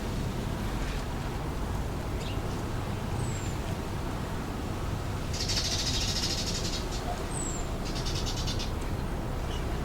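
Steady wind rumble with wild birds: two short, high, falling chirps, and two spells of fast, high, rattling chatter, one about halfway through lasting over a second and another shorter one near the end.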